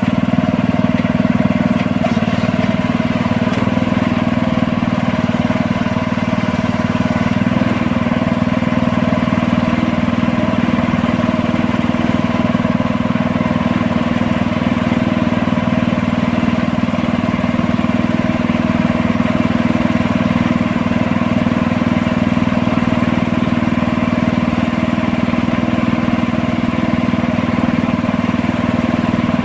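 Engine of an orchard aerial work platform (engine-driven lift truck) running steadily at a constant speed, a loud even hum with no revving or change in pitch.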